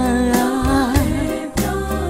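Burmese pop song playing: a sung melody line, held and wavering, over the band's bass and drums.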